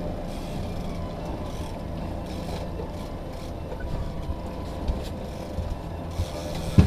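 Boat's outboard motor running steadily at trolling speed, a low hum under wind and water noise. A sharp thump just before the end.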